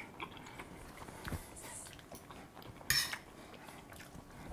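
Metal fork clinking and scraping against a stainless-steel frying pan while scooping up creamy pasta, with a few light clicks and one louder scrape about three seconds in.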